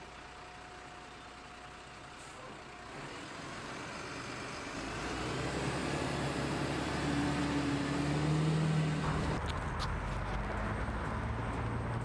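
A city bus's engine running and growing steadily louder as it draws near, with a low hum. The sound changes abruptly about nine seconds in, with a few sharp clicks.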